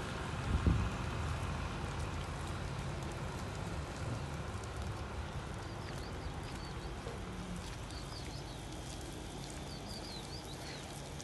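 Steady rain falling, with a short low thump on the microphone about half a second in. Small birds chirp briefly several times in the second half.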